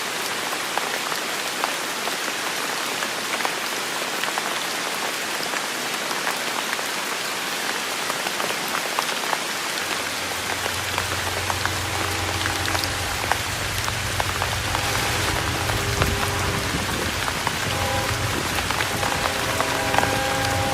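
Steady rain falling on a surface. About halfway through, a low rumble comes in underneath, and soon after a distant train horn sounds its several-note chord in short broken blasts that echo.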